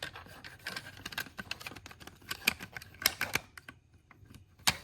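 Irregular light clicks and taps of small plastic model-locomotive parts being handled, with the sharpest click near the end.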